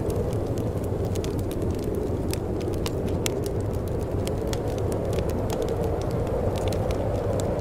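Wood fire crackling in a fireplace, with sharp irregular pops, over a steady low rushing of wind.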